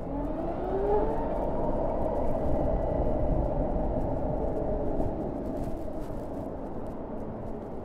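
Harley-Davidson LiveWire electric motorcycle's motor whine, rising in pitch as it accelerates, then holding steady over wind and road noise. It eases off about five seconds in.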